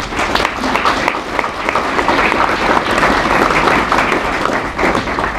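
Audience applauding, a dense patter of many hands clapping that starts suddenly and dies down near the end.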